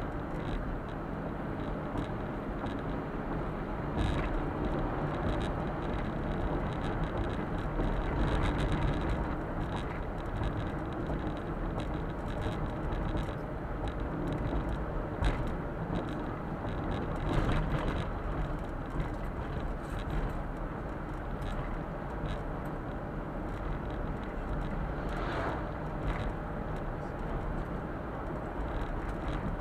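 Suzuki Super Carry kei truck driving, heard from inside the cab: a steady hum from its small three-cylinder engine and tyre and road noise, with a few brief knocks and rattles from bumps.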